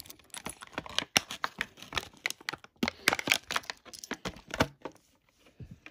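Stiff clear plastic blister packaging crinkling and clicking as it is handled, a run of irregular sharp clicks that stops about a second before the end.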